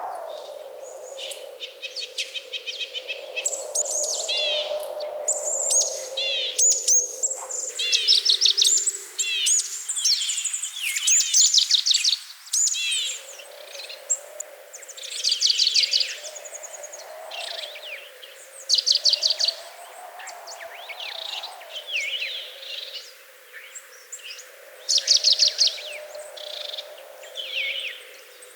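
Songbirds chirping and trilling: many short, high phrases repeated every second or two, over a lower, steadier sound that drops out for a few seconds near the middle.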